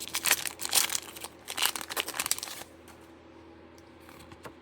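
Foil Pokémon booster pack wrapper being torn open and crinkled for about two and a half seconds, then a few faint taps as the cards are handled.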